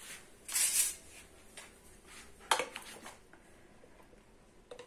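Light kitchen handling sounds off to the side: a short rustle, then a couple of sharp clicks and knocks of utensils or a container. The mixer grinder is not running.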